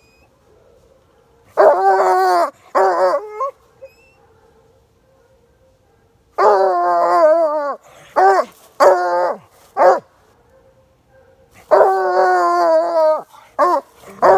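A coonhound baying on a training drag: three long, wavering bawls about five seconds apart, each followed by a few shorter barks.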